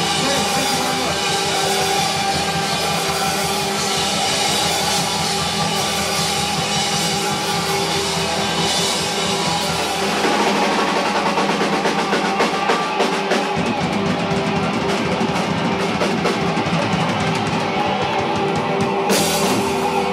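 Rock music from a band with drum kit and electric guitar, getting louder and busier about halfway through.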